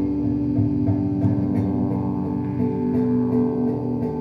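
Experimental music soundtrack: sustained droning tones overlaid with a plucked-string texture and sharp clicks here and there.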